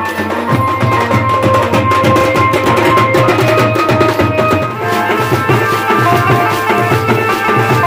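Indian wedding brass band playing: horns hold a melody over a steady drum beat, the tune moving to new notes about five seconds in.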